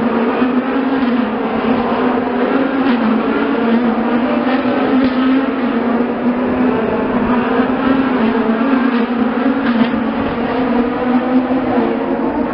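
IndyCar race cars running on the street circuit out of sight, blending into one loud, steady drone whose pitch wavers slightly.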